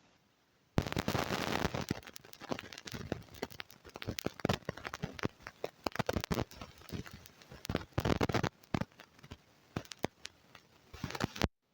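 Close-miked eating sounds: crisp crunching and clicking of chewing food, starting suddenly about a second in, thinning out at times and cutting off abruptly near the end.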